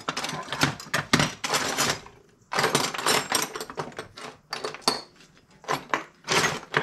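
Metal hand tools and small parts clinking and clattering as they are rummaged through in a tool tray, in irregular runs of clanks with short pauses between.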